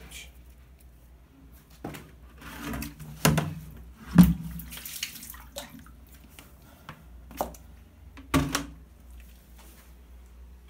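Clear plastic bucket being handled on a tiled bathroom floor: a handful of separate knocks and bumps, the loudest about four seconds in, with a short hissing stretch just after it.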